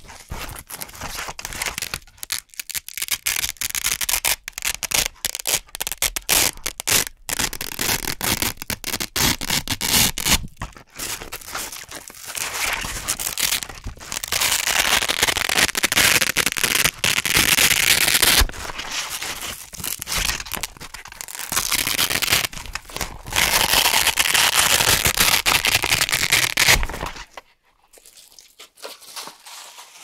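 Velcro hook circle peeled off knit fabric close to the microphone: crunchy, crackling ripping, in many short pulls at first and then in longer drawn-out tears, cutting off shortly before the end.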